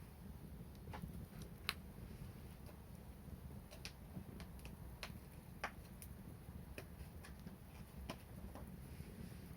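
Wood fire crackling: irregular sharp pops and snaps, about one or two a second, over a faint steady low rumble.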